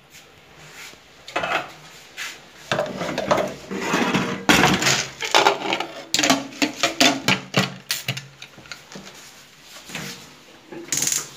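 Aluminium pressure cooker lid being fitted and turned shut on the pot, with a run of irregular metal clicks, knocks and scrapes.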